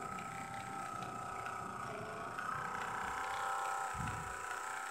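Small electric motor and plastic gear train of an animated toy mechanism running: a steady whine with faint ticking from the gears, the noise of a drivetrain that still has trouble somewhere in it. A brief low rumble comes about four seconds in.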